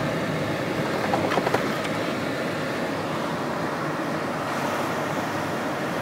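A car moving slowly, heard from inside the cabin: steady engine and tyre noise, with a few faint clicks about a second and a half in.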